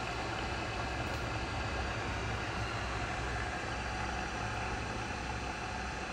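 TOS Kuřim FNK 25A vertical turret milling machine running with its spindle turning and the quill on power feed at a raised feed rate: a steady machine hum with a low drone underneath and no distinct knocks.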